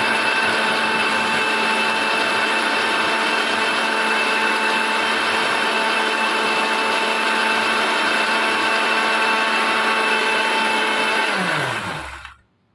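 Sparrow mixer grinder's motor running steadily at full speed, its steel jar grinding boiled tomatoes, onion, garlic and chillies into a paste. Near the end it cuts off and the motor winds down with a falling hum.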